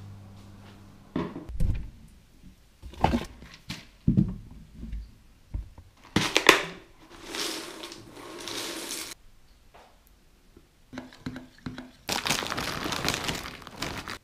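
Breakfast being made: mugs knocked down on a table several times, then a pour about six seconds in. Near the end, the loudest part: pillow-shaped cereal poured from a crinkly plastic bag into a mug.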